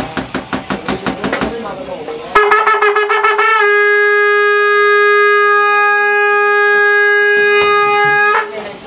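Large drums beaten with sticks in a fast, even beat that stops about a second and a half in. About a second later a horn is blown: its note wavers briefly, then holds one long steady pitch for about five seconds and cuts off near the end.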